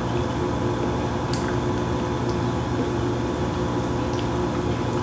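A liquid being poured over a layered casserole, with soft wet squishes and a few light clicks, over a steady background hum.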